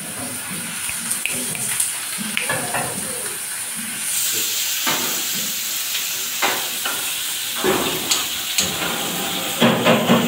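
Meat sizzling steadily in a ridged grill pan over a gas burner, the hiss getting louder about four seconds in, with scattered clinks and knocks of utensils and pans.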